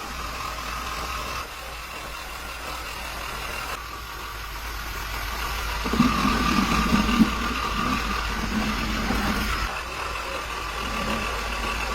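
Car engine running at idle, steady throughout, getting louder from about halfway in with two brief sharp knocks.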